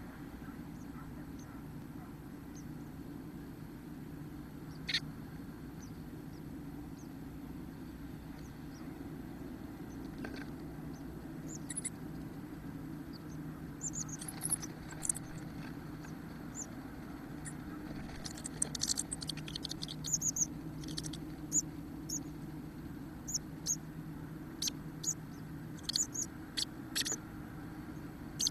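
Thin, high, squeaky calls of Chestnut-backed Chickadees inside the nest box, starting sparsely about halfway through and coming in quick clusters near the end, as the male arrives with food. A steady low hum runs underneath.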